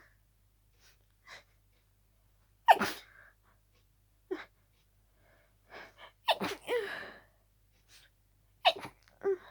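A person sneezing over and over in a harsh, rapid fit brought on by a cold, with short gasping in-breaths between the sneezes. The loudest sneeze comes about three seconds in, and a quick run of them follows near the end.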